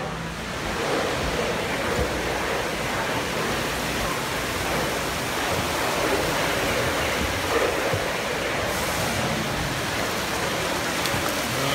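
Steady rushing splash of an indoor waterfall pouring into a large fish pond.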